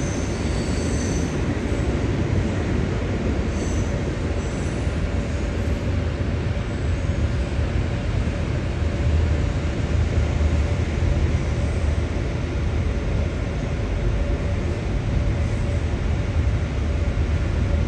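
Fire engine running: a steady, loud low diesel rumble with a faint steady whine over it.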